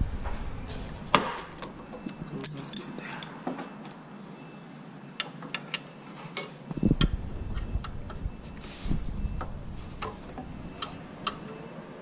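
Irregular light metallic clicks and taps of a wrench being fitted to and worked on the alternator's lower 12 mm bolt, with a couple of dull bumps about seven and nine seconds in.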